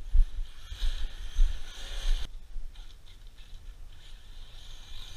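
Gusty wind buffeting the microphone, with the faint, intermittent high whine of a 6S brushless-powered 1/10 RC truck running in the distance.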